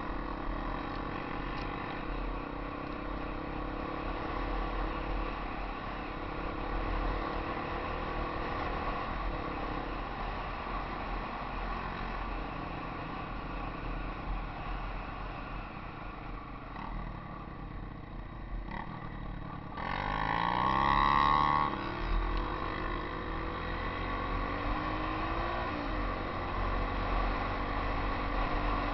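Yamaha XT 250 single-cylinder four-stroke trail bike engine running under way on a dirt track, heard from the rider's helmet with wind rush. It eases off briefly, then about twenty seconds in it revs up and down and is loudest for a couple of seconds before settling back to a steady run.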